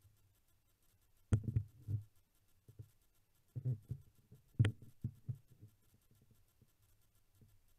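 Dull, muffled knocks and thumps against a dashcam's sealed plastic food-container housing held underwater. They come in two clusters, about a second and a half in and again around four to five seconds in, and each cluster has one sharper click.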